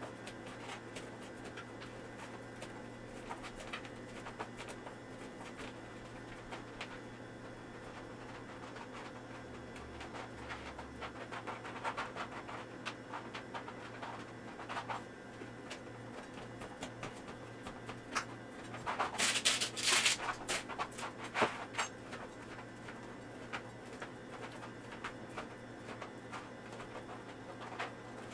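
Quiet knife work on a plastic cutting board: a kitchen knife cutting baked treat slabs into squares, with faint taps and scrapes as the pieces are handled, and a cluster of sharper clicks and knocks about nineteen to twenty-one seconds in. A faint steady hum lies underneath.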